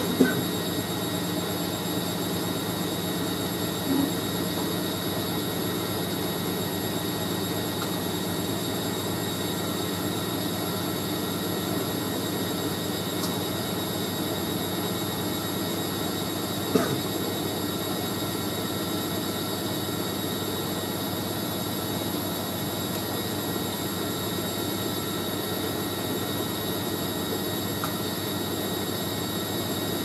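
Hoover A3060 front-loading washing machine spinning a load of bedding, the drum turning at a steady speed with a steady motor hum. Two brief knocks come about 4 and 17 seconds in, but the spin stays pretty stable.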